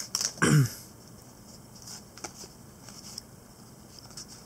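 Paper trading cards being handled and flipped through by hand, giving a few faint scattered ticks and rustles. About half a second in comes a brief, louder sound that falls in pitch.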